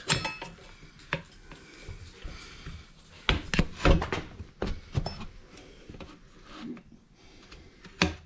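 Steel tyre levers knocking and clinking against a motorcycle wheel rim as a tyre is levered onto the rim by hand, with rubbing of rubber between. A handful of sharp knocks, the loudest about halfway through and another near the end.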